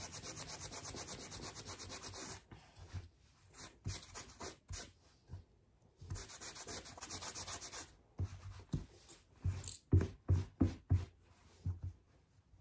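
Hand-held sandpaper scraped rapidly back and forth on denim, several strokes a second, wearing the blue threads away to distress the jeans. The sanding stops twice, and in the last few seconds it gives way to irregular soft thumps and rustles of the fabric being handled.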